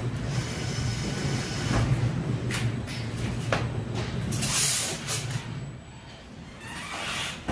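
Heavy machinery running with a steady low hum, broken by a few short knocks and a burst of hiss about four and a half seconds in.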